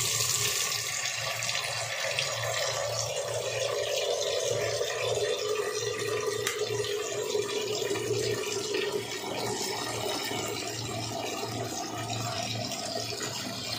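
Tap water pouring steadily into a metal pot in a sink as it fills. The splashing rush carries a hollow note that slowly sinks in pitch.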